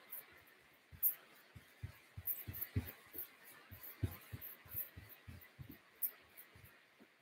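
Quick footfalls of sneakers on a carpeted floor during an agility ladder drill: a run of dull, low thuds, about three or four a second.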